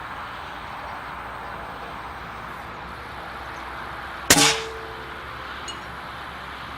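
Air Arms S410 bullpup PCP air rifle firing once, a little over halfway through: a sharp crack followed by a brief metallic ring. A faint tick comes about a second and a half later.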